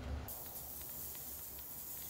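Ultrasonic cleaning tank running, a steady high hiss from the bath that starts about a quarter second in and cuts off sharply at the end.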